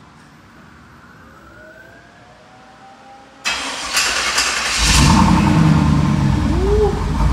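Chevrolet Camaro IROC-Z28's 305 Tuned Port Injection V8 given a cold start: quiet for about three and a half seconds, then the engine is cranked and catches, and it runs loudly.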